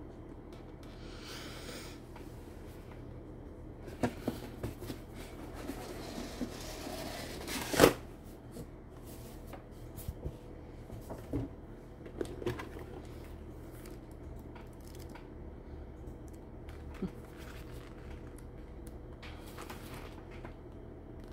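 Cardboard doll box being opened and handled: rustling, sliding and tapping of cardboard and paper, with a sharp knock about eight seconds in. Near the end, pages of a paperback book are riffled.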